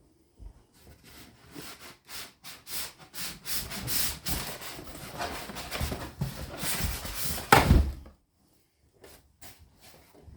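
Box and packaging scraping and rubbing as a sliding mitre saw is worked out of its box, ending in one loud thump about three-quarters of the way in, followed by a few light knocks.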